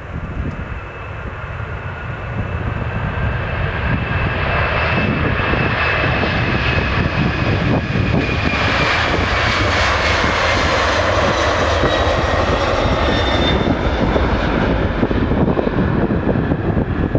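Boeing 767-300ER's twin turbofan engines at takeoff thrust as the airliner accelerates down the runway and lifts off. The sound grows louder over the first several seconds, the engine whine falls in pitch as the jet passes, and a steady loud rumble remains as it climbs away.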